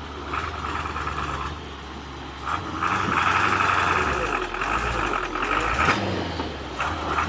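Heavy truck engine running, with a loud higher-pitched drone that comes and goes three times.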